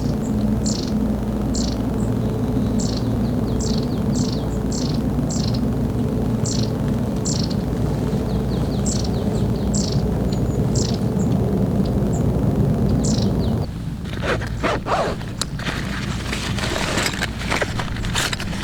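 A bird calling in short, evenly repeated chirps, about two a second, over a steady low rumble. About three-quarters of the way through, this gives way abruptly to a run of sharp clicks and rustling.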